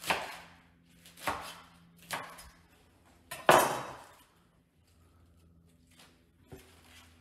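Kitchen knife chopping escarole on a plastic cutting board: four separate chops in the first three and a half seconds, the last one the loudest, then faint handling of the cut leaves.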